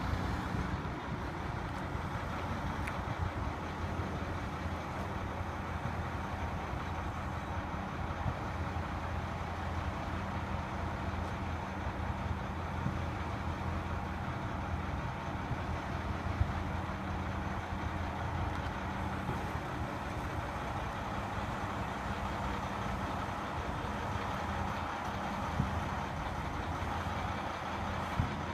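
Heavy truck engine idling steadily, with a few light knocks now and then.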